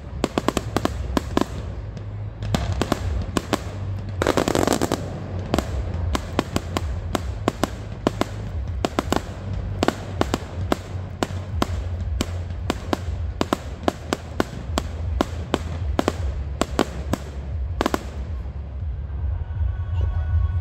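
Fireworks display: a fast, irregular string of bangs and crackles from bursting aerial shells, with a longer, louder burst about four seconds in and one heavy bang near the end, after which the bangs thin out.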